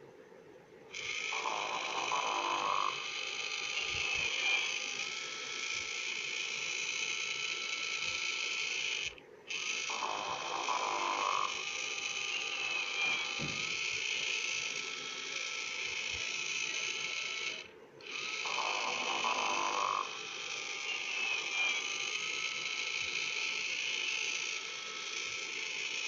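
Sing & Snore Ernie toy (Tyco, 1997) playing its snoring sound through its small speaker: three long snores about eight and a half seconds apart, each opening with a short rasp and trailing into a long hissing breath, with a brief break between them.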